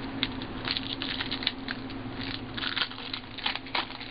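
Foil trading-card packs crinkling in the hands as one is pulled from the box and torn open: a quick, irregular run of small crackles.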